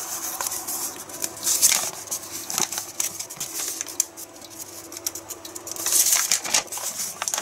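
A folded paper instruction sheet being unfolded and handled, the paper crackling and rustling, with louder rustles about two seconds in and again about six seconds in.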